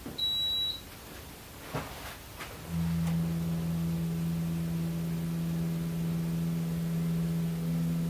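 Zanussi ZPAC9002 portable air conditioner switched on: a single short high-pitched beep from its control panel, a couple of faint clicks, then about three seconds in the unit starts running with a steady low hum as its top outlet flap opens.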